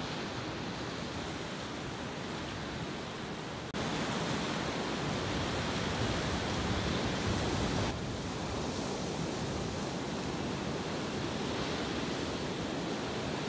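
Steady rush of ocean surf breaking on a rocky shore. The level steps up abruptly about four seconds in and drops back about eight seconds in.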